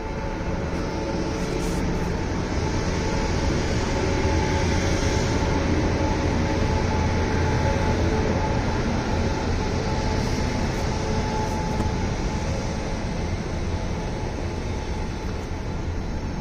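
Indian Railways passenger train of LHB coaches rolling slowly past: a steady rumble of wheels on the track, with a faint steady hum, building slightly in the first few seconds.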